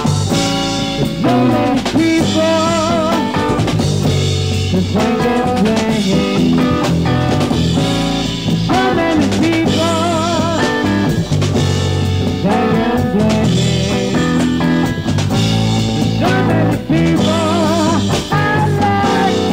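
Rock band playing live, with a drum kit and a wavering lead melody line bending over a steady bass.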